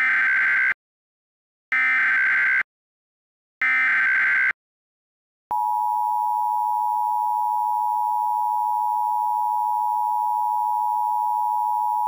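Emergency Alert System header: three identical bursts of screechy digital data tones about a second apart, followed by a loud, steady attention tone that starts about halfway through and holds on.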